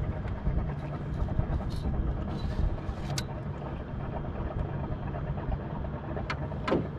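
A boat's motor running steadily at low revs, with a few short sharp clicks about three seconds in and near the end.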